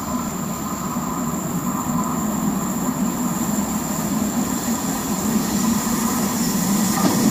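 Belgian AM86 electric multiple unit approaching along the platform on a curve. Its running noise grows slowly louder, with a thin high steady squeal from the wheels.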